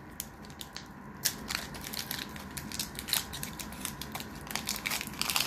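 Foil Pokémon booster pack wrapper being torn open and crinkled by hand: an irregular run of sharp crackles and snaps, loudest about a second in and near the end.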